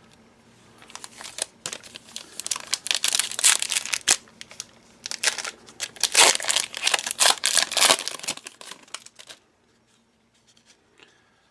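Foil wrapper of a Donruss Optic football card pack being torn open and crinkled, in repeated bursts of rustling for several seconds before it stops.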